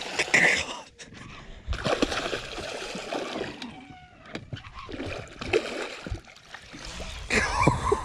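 A hooked fish thrashing and splashing at the water's surface beside the boat, in several uneven bursts of splashing.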